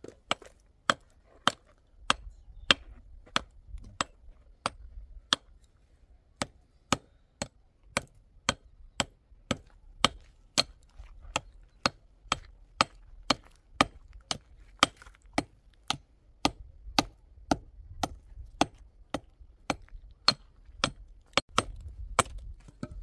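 Wood being chopped by hand with a bladed tool, in steady, evenly spaced strokes, about three every two seconds, that stop just before the end.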